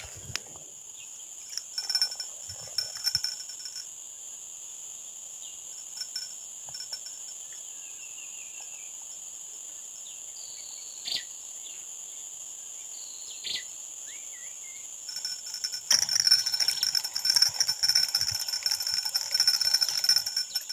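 Steady high-pitched drone of insects, cicadas or crickets, with a few faint clicks and short chirps. It turns louder and rapidly pulsing for the last few seconds.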